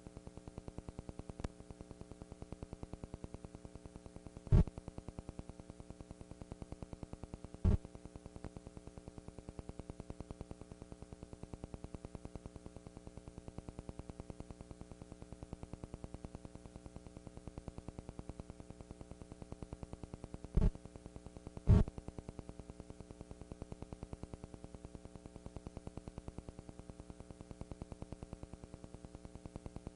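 Steady electrical hum and buzz, with no band music clearly heard, broken by a few loud pops. One pop comes about five seconds in, one near eight seconds, and two close together a little past the two-thirds mark.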